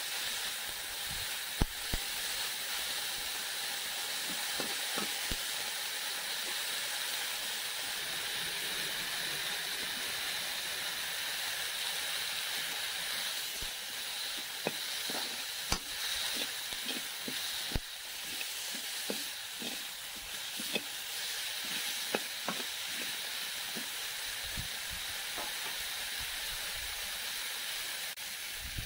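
Chopped green amaranth leaves frying in a metal kadai with a steady sizzling hiss, while a slotted metal spatula stirs them, scraping and clicking against the pan. The clicks come more often in the second half.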